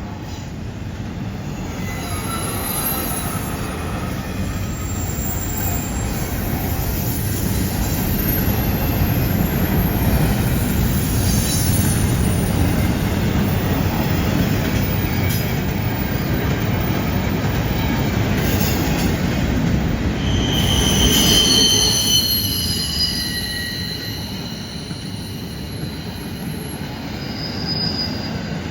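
Freight train cars rolling past on a curve: a steady low rumble of wheels on rail. High-pitched wheel flange squeal rises about two-thirds of the way through, as the wheels grind against the curved rail.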